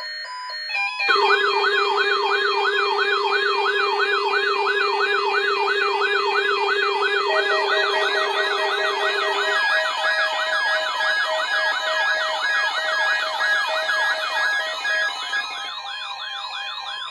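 NOAA Weather Radio warning alarm: a steady alert tone, with electronic siren-like wails rising and falling about three times a second laid over it from about a second in. A second, faster wail joins partway through.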